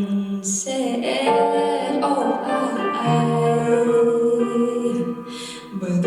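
A solo female voice singing slow, long-held notes over instrumental accompaniment, with a brief dip in loudness near the end.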